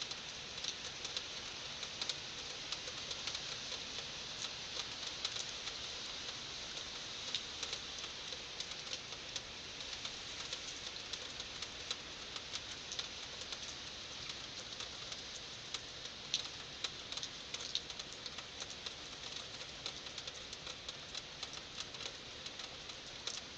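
Heavy rain falling steadily, a continuous hiss with many drops pattering and ticking on hard surfaces.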